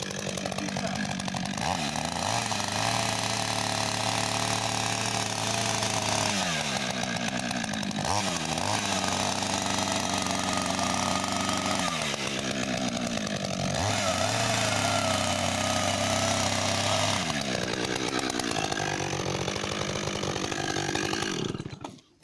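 Husqvarna 562 XP two-stroke chainsaw running at high revs while cutting into ice, its pitch dipping and picking up again several times. It stops abruptly near the end.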